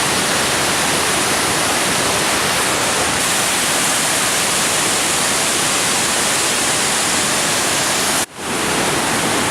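Amicalola Falls waterfall: a loud, steady, even rush of falling water, broken by a brief dropout near the end.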